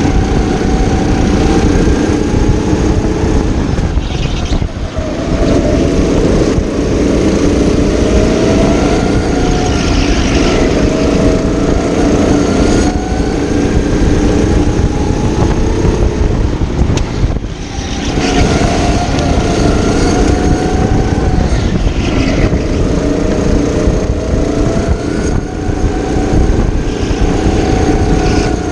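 Racing go-kart engine heard from the driver's seat at full throttle, its revs rising and falling through the corners, with two brief dips where the throttle is lifted, about four seconds in and again a little past halfway.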